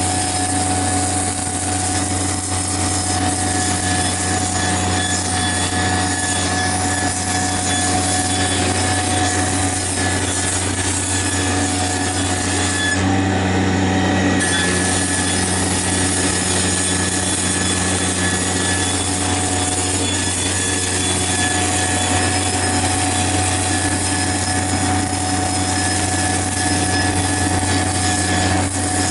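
Denyo engine-driven welding generator running steadily at constant speed, a loud even engine drone with a brief change in tone about halfway through.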